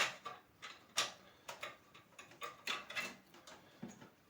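Irregular sharp plastic clicks and knocks, about eight over a few seconds, as power connectors are worked loose and pulled from hard drives inside a desktop computer case.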